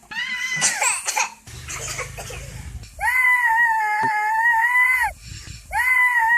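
A young child crying: short rising squeals, then two long, high, steady wails of about two seconds each, starting about three seconds in and again near the end.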